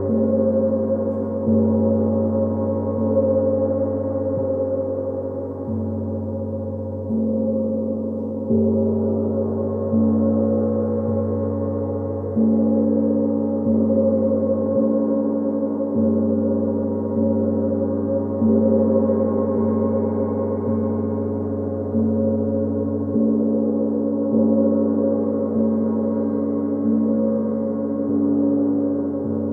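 Gong struck softly and repeatedly, about once every second and a half, each stroke ringing on into the next in a steady, overlapping hum of low tones whose pitch shifts slightly from stroke to stroke.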